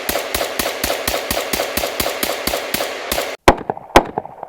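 A rapid, even train of sharp cracks, about six or seven a second, runs for just over three seconds and cuts off abruptly. Then comes a louder sequence of rifle shots: two loud shots about half a second apart, with fainter reports between them.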